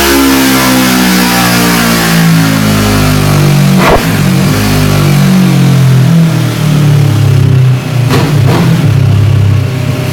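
Kawasaki ER-6n parallel-twin engine through an aftermarket Mivv exhaust, its revs falling steadily for about four seconds as it winds down after a dyno pull. It then runs low and uneven, with a few sharp clunks.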